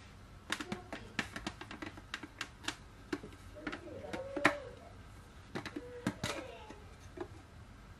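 Irregular plastic clicks and knocks from the clear plastic bowl, lid and blade of a baby food blender being taken apart and handled on a stone counter.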